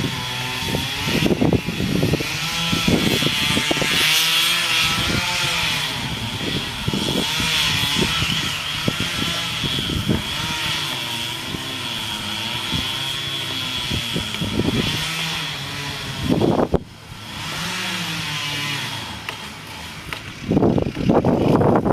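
Chainsaw engine running and revving up and down under load while cutting, with a steady high whine over it and short knocks throughout; it drops out briefly about three-quarters of the way through, then comes back louder.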